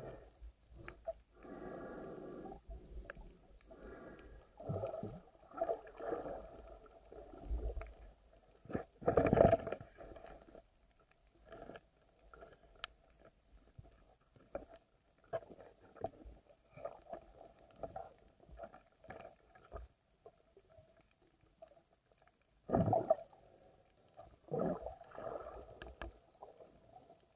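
Muffled underwater noise heard through a camera's waterproof housing: irregular knocks, bumps and water rushing as the diver moves, loudest about nine seconds in and again near twenty-three seconds.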